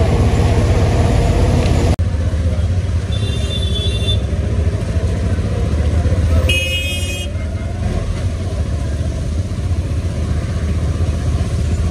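Auto-rickshaw engine running with a steady low rumble, heard from inside the open passenger cabin while riding in traffic. Two short vehicle horn toots sound, one about three seconds in and a louder one about six and a half seconds in.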